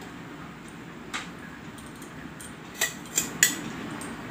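Stainless-steel kitchen utensils clinking, a steel spoon against a steel plate: one light clink about a second in, then three sharper, ringing clinks close together near the end.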